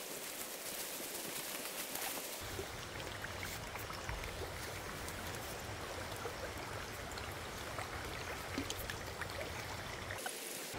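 Steady rushing of flowing stream water, with a few faint ticks.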